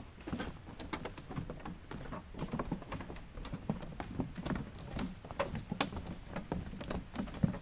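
Footsteps of people walking on a trail: an uneven run of short thuds and clicks, a few per second.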